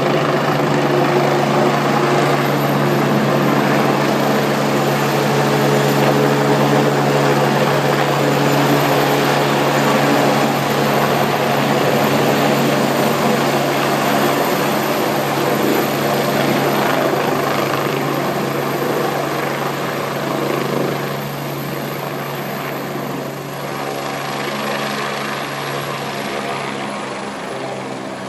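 Helicopter landing: a steady drone of rotor and engine that grows quieter over the last several seconds.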